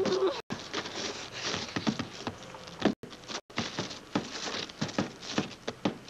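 Irregular scuffing and scraping of a person crawling and shifting on roof shingles: clothing and shoes rasping and clicking against the shingle surface, broken by two brief silent gaps.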